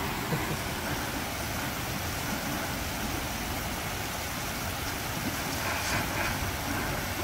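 Garden hose spraying a fine jet of water across grass: a steady hiss with a low rumble underneath.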